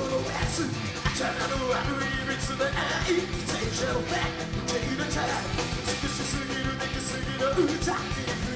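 A rock band playing live, with a steady drum beat, electric guitars and a male singer's voice.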